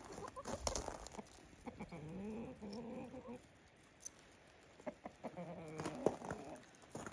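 A flock of chickens clucking softly while foraging, in two spells of calls with a quiet pause between, and a few light clicks scattered through.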